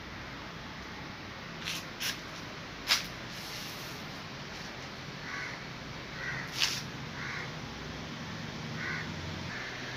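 Crows cawing, about five short calls in the second half. A few sharp clicks or knocks come earlier, the loudest about three seconds in, with another near the middle.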